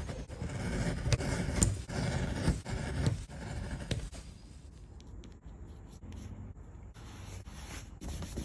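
A knife paring (skiving) thin shavings off leather: repeated scraping cuts with sharp clicks as the blade bites. About four seconds in it drops much quieter, with a few soft rubbing swishes near the end as the leather is buffed with a fleecy pad.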